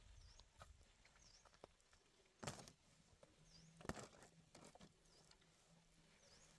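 Near silence: a few soft rustles and knocks, the two loudest about two and a half and four seconds in, with a faint high chirp recurring now and then.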